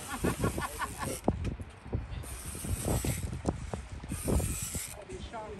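Fishing reel working against a hooked fish on a bent rod: a quick run of clicks in the first second, then three hissing bursts about a second long each, with scattered knocks from the rod and reel.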